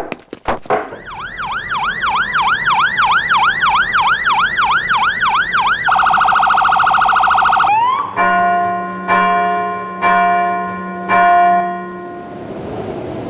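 Emergency vehicle siren in a fast yelp, sweeping up and down about three times a second, then switching to a much faster warble. After a short rising glide, a horn sounds four blasts of a second or less each.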